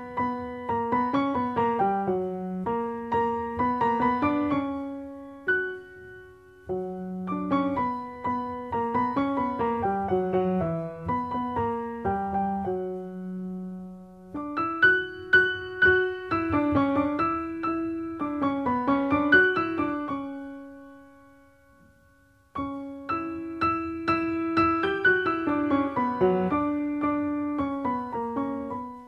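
Solo piano music: four phrases of struck notes, each fading out before the next begins.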